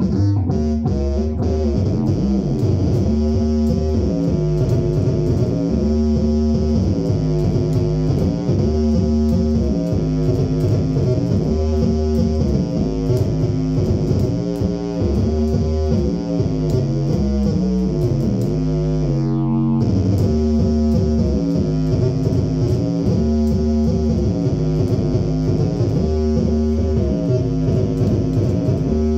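Fretless electric bass played through a Phil Jones Bass amp and cabinet: a steady, rhythmic phrase of sustained plucked notes.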